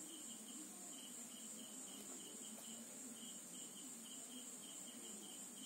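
Faint insect chirping, a short high pulse repeating about three times a second, over a steady high hiss.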